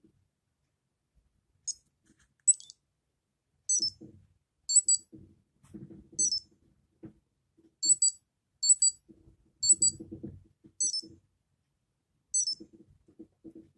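Tamagotchi Meets Pastel Meets toy's small speaker giving about ten short, high electronic beeps at irregular spacing. Soft low knocks and clicks from the toy being handled fall among the beeps.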